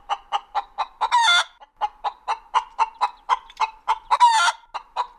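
Chicken clucking: a quick, even run of short clucks, about four a second, broken by two longer rising-and-falling squawks, about a second in and about four seconds in. It starts abruptly as the speech before it stops.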